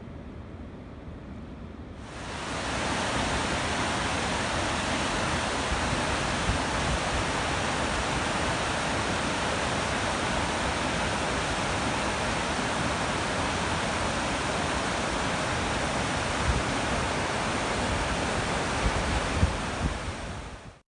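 Rushing water from the dam's outflow: a steady, even rush that swells in about two seconds in and cuts off abruptly near the end.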